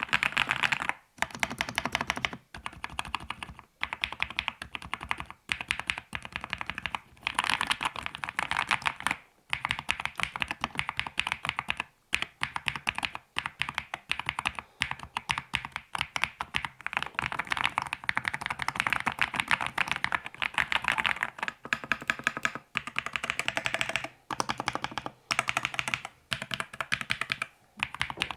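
Akko SPR 67 custom mechanical keyboard typed on quickly, its stock unlubricated switches and PBT keycaps clacking in fast runs broken by brief pauses every second or two.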